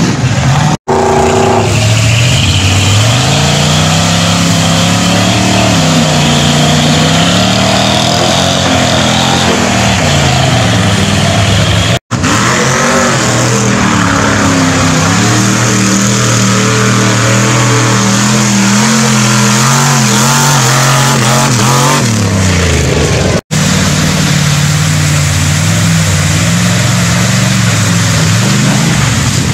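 Mud-bog trucks and buggies' engines revving hard through deep mud, the pitch climbing and dropping again and again with the throttle. The sound breaks off for an instant three times as one run gives way to the next.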